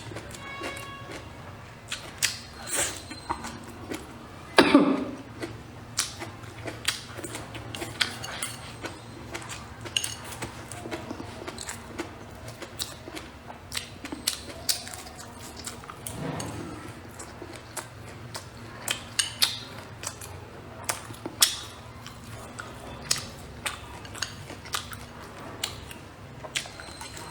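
A person eating close to the microphone: chewing and biting, with frequent short clicks and taps. A louder, longer sound comes about five seconds in, and another around sixteen seconds, over a faint steady hum.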